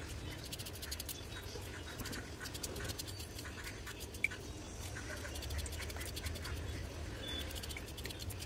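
Small kitchen knife slicing through peeled raw potato held in the hand: a string of soft, crisp cuts and light clicks, one a little sharper about four seconds in, over a faint low hum.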